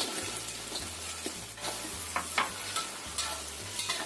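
Boiling oyster-sauce and sweet-soy mixture sizzling in a wok as fried tempeh pieces are tipped in and stirred with a metal spatula. The spatula scrapes and clicks against the wok several times.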